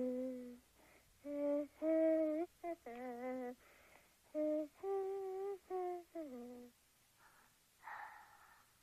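A child humming a slow wordless tune, one held note after another with short gliding slides and brief gaps. The humming is followed by two short breathy sounds near the end.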